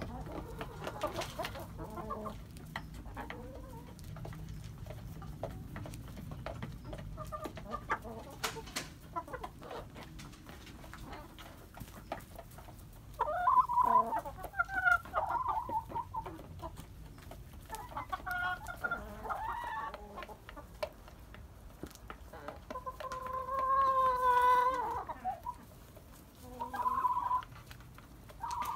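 Chickens clucking and calling. It is quiet at first, then several loud bursts of calls come in the second half, including one long drawn-out call about two-thirds of the way through.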